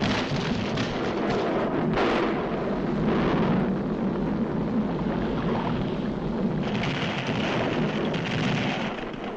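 Continuous rumbling and crashing noise of a cartoon volcanic eruption, with a fresh surge about two seconds in and a brighter, hissing stretch near the end.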